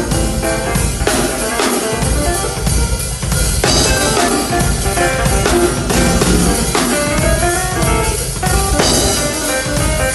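Yamaha drum kit with a PDP snare played in a steady groove, kick, snare and cymbal strikes, over melodic backing music.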